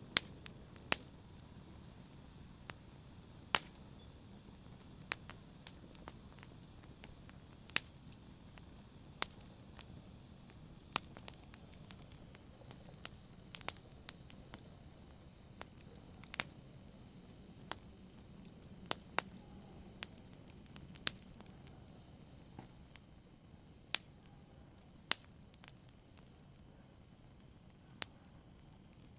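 Logs burning in a fireplace, giving off sharp, irregular crackles and pops about once a second over a faint steady hiss.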